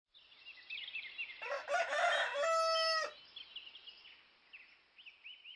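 A rooster crows once in the middle, a call that climbs and then holds a long steady note before cutting off. Small birds chirp repeatedly around it.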